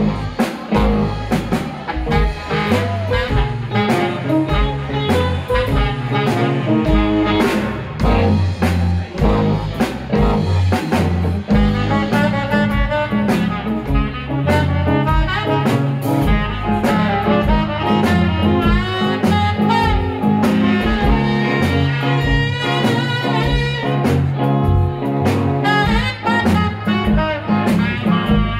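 A live blues band playing an instrumental, with a saxophone playing the lead over electric guitar, bass guitar and a steady drum beat.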